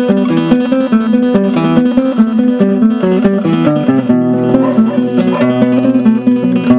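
Classical Spanish guitar played fingerstyle: a quick melody of short plucked notes, with low notes held beneath it from about four seconds in.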